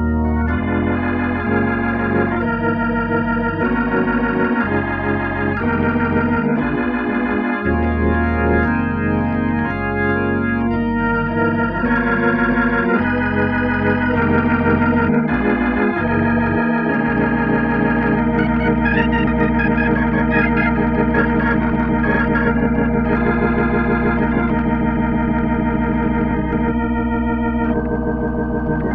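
Hammond RT3 organ played through a Leslie 122 speaker: a run of changing chords over a moving pedal bass line, then from about halfway a long held chord over a steady bass note, its upper notes wavering.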